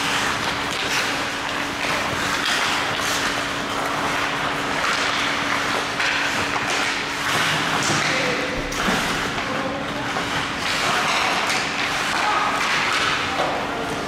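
Ice hockey play heard from the stands: skates scraping and carving the ice, with sticks and puck knocking and clacking against each other and the boards. Spectators' voices call out now and then over a steady low hum in the rink.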